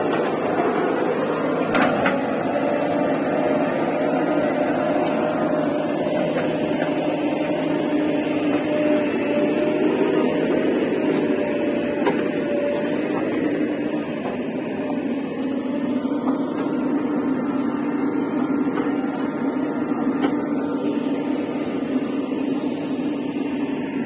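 JCB 3DX backhoe loader's diesel engine running steadily under load while its hydraulics work the digging arm. There is a slight rise and fall in engine pitch, and a brief sharp clank about two seconds in.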